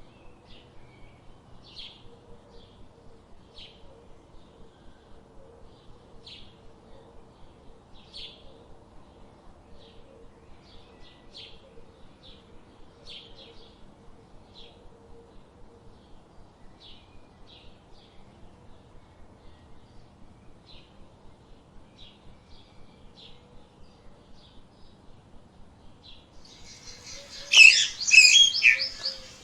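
Small birds chirping, short high chirps coming about once a second. Near the end a much louder burst of busy bird calls breaks in.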